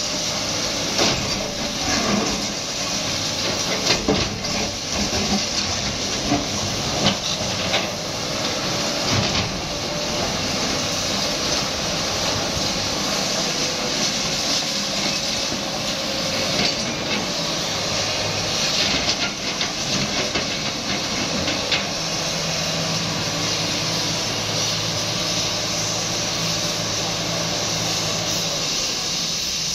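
Sany SY215C excavator demolishing concrete: its diesel engine runs under load with a hydraulic hiss, and the bucket knocks, scrapes and crunches through broken concrete and rubble. The knocks and crashes are thickest in the first half; the engine hum is steadier near the end.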